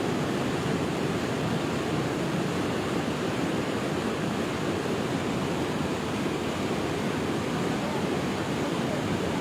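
The swollen Kabul River in flood, its fast-moving water rushing in a steady, unbroken noise.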